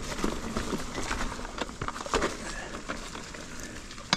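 Ibis Ripley AF mountain bike riding a tight, rooty dirt trail: tyres rolling over dirt and roots, with scattered knocks and rattles from the bike. There is a cluster of knocks between one and two and a half seconds in, and a single sharp knock at the very end.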